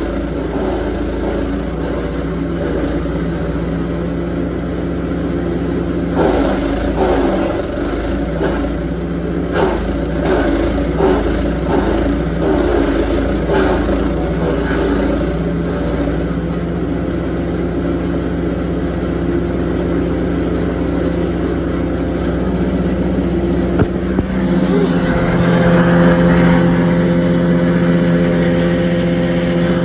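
Petrol engine of a Lumag Rambo HC10 wood chipper running steadily, with dense crackling and snapping as branches are fed in and chipped, heaviest from about 6 to 16 seconds in. From about 24 seconds in, the engine is louder and closer.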